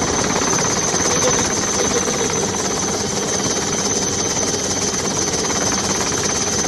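Steady helicopter rotor and engine noise heard from aboard, with a constant high whine over it.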